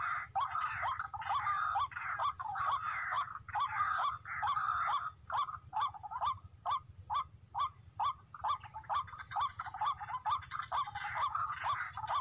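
Tikling (barred rail) calling: a steady run of short, harsh, rising notes, about three or four a second.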